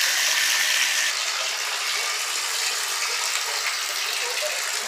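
Water running from a bathtub tap into the tub, a steady hiss.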